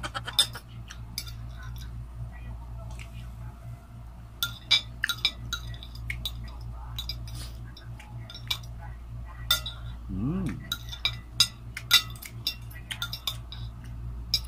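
Metal fork clinking and scraping against a clear glass plate while noodles are eaten: scattered sharp clinks, thickest about halfway through and again near the end, with a short hummed 'mm' from the eater about ten seconds in.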